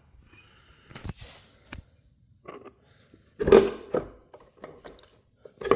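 Scattered knocks and clunks of metal motor parts being handled and worked apart by hand during a motor teardown, the loudest knock about three and a half seconds in.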